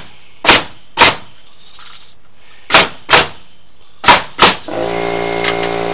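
Six loud, sharp strikes on wooden deck framing, coming in three pairs. Near the end a motor starts and runs steadily.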